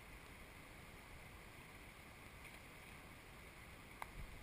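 Near silence: a faint, steady hiss of river water flowing, with one sharp click about four seconds in.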